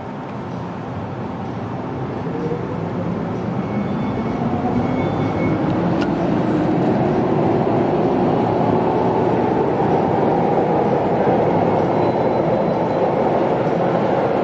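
MTR metro train running through the station. Its rumble grows louder over the first several seconds, and a whine climbs in pitch, then holds steady.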